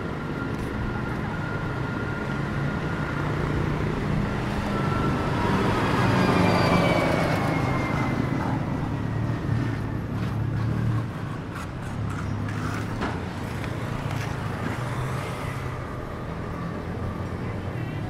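Road traffic: cars and vans passing on a city street, a steady rumble that swells as one vehicle passes close about six seconds in, its pitch falling as it goes by. A few short knocks follow a few seconds later.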